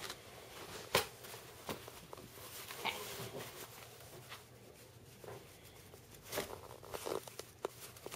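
Faint, scattered taps and rustles of a cardboard sheet being handled on a carpeted floor.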